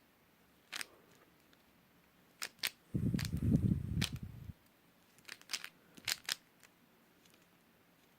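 Dayan Zhanchi 55mm 3x3 speed cube clicking as it is handled and its layers are turned: a few sharp, separate clicks spread out, with a low dull rumble about three seconds in that lasts a second and a half.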